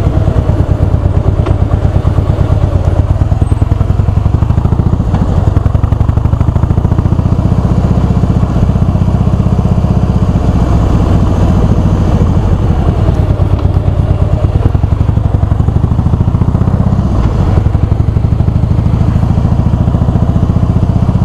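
2008 Harley-Davidson Heritage's V-twin engine running under way at low town speed, a steady, rapid, low beat of firing pulses.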